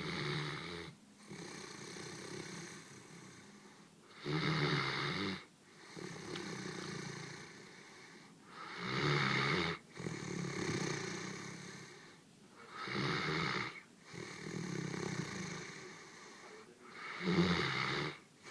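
Great Dane snoring. Five loud snores about a second long come every four to five seconds, each followed by a longer, quieter breath.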